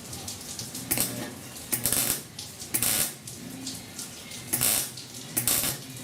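Wire-feed welder stitch welding thin sheet-metal body panel: about six short bursts of crackling arc, each a fraction of a second, with brief pauses as the trigger is bumped on and off to limit heat distortion.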